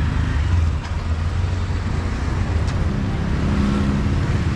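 Street traffic: a steady rumble of passing vehicles, with an engine note rising out of it about three seconds in.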